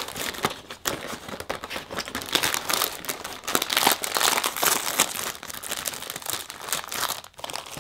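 Crinkly foil inner bag of Arnott's Shapes biscuits being crumpled and torn open by hand. A dense, irregular run of crackles stops shortly before the end.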